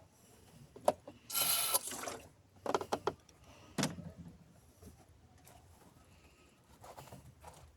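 Hand-tool work in a car's engine bay: a sharp click, a brief loud scraping rush of noise, then a quick cluster of clicks and a single heavier knock.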